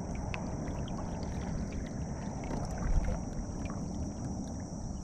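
Kayak moving through calm water: a steady swish of water along the hull, with some wind noise on the microphone and a few small knocks.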